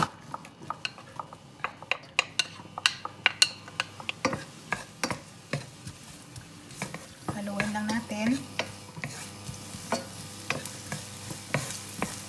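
Wooden spatula stirring diced onion in olive oil in a hot nonstick frying pan: many quick scrapes and taps against the pan over a soft sizzle as the onion starts to fry.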